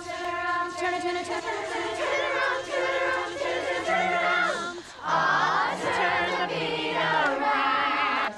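Female a cappella group singing in close harmony with no instruments: held chords at first, then a moving melody, with a low sung bass part coming in about four seconds in.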